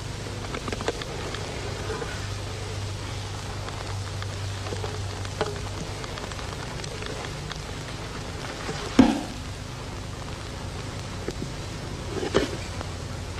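Fingers and fingernails scratching and tapping on a bongo drumhead: a soft, scratchy rustle with a few light taps, a sharper strike about nine seconds in and another near the end.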